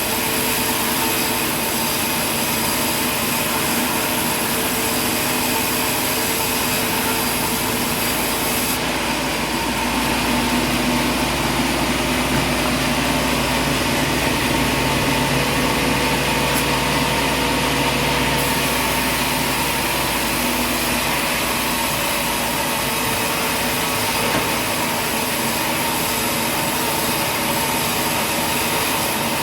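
Steady, continuous running noise from heavy machinery, with a constant hum under it.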